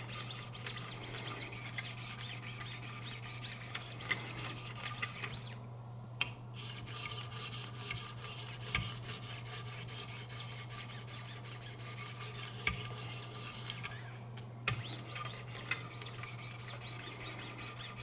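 1,500-grit diamond stones of a Wicked Edge guided sharpener stroking along a steel knife blade: a steady rasping scrape, with two short pauses about five and fourteen seconds in.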